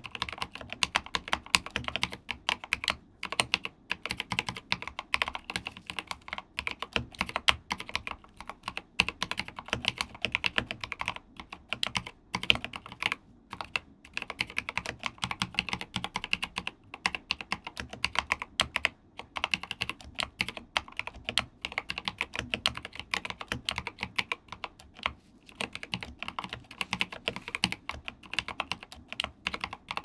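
Typing on a Rama Koyu custom mechanical keyboard with Krytox-lubed, filmed Mauve linear switches and SA-profile keycaps: a fast, steady run of keystroke clacks with a few brief pauses.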